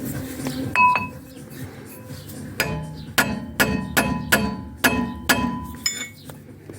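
Metal tools striking and clinking against metal: one ringing clink about a second in, then a quick irregular run of about eight sharp metallic knocks, each with a short ring.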